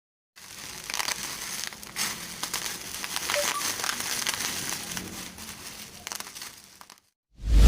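Parcel packaging being handled and opened: continuous crinkling and crackling with many small sharp clicks for about six and a half seconds. Music starts up near the end.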